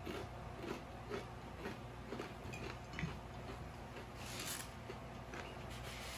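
Close-up chewing of a BBQ kettle chip: a run of small crunches about twice a second, with a brief louder hiss about four seconds in.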